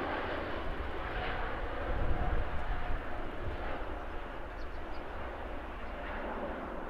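Japan Airlines Airbus A350-900's twin Rolls-Royce Trent XWB turbofans at takeoff thrust as the jet lifts off and climbs away: a steady jet roar with a deep rumble, easing slightly over the last few seconds.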